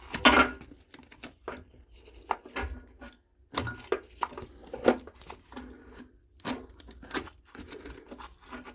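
Irregular scrapes and clicks of a bent stiff wire being worked under the anode rod head at the top of a water heater to lift it up, the loudest just after the start.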